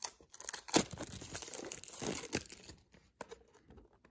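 Diecast model's packaging crinkling and rustling as it is handled and pulled at, with sharper crackles about a second in and again near two and a half seconds.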